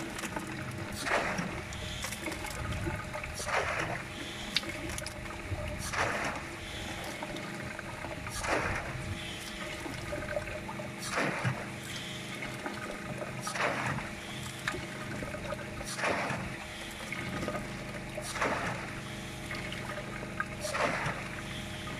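A Bunyip PA13 water-powered pump delivers a thin stream of water that trickles into a plastic measuring jug, running at about 2 litres a minute against high pressure. A surge comes about every two and a half seconds as the pump cycles, over a steady background of running water.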